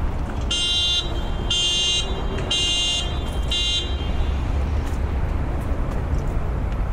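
Four evenly spaced high-pitched electronic beeps, each about half a second long and about a second apart, stopping after the fourth. A steady low rumble runs underneath.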